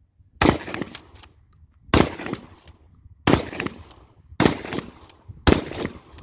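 Dickinson pump-action shotgun fired five times in steady succession, a shot about every second and a half, each sharp report followed by a short tail and a few fainter clacks.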